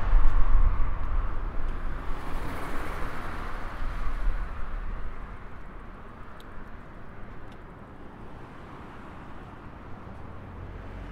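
A car driving past on the road alongside, its engine and tyre noise fading over the first five seconds or so, leaving quieter distant traffic.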